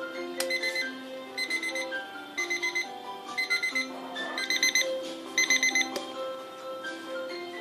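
Electronic alarm clock beeping its alarm: short groups of rapid high beeps about once a second, getting louder, then stopping about six seconds in, over a melody of music.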